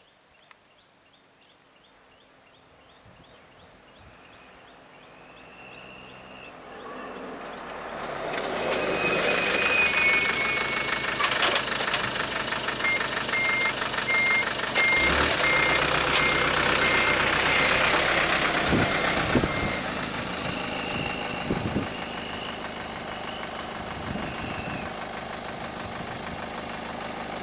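A vehicle engine swells up from quiet to a loud run about eight seconds in, then drops back about twenty seconds in to a steady idle. A row of short, evenly spaced beeps sounds over the loudest stretch.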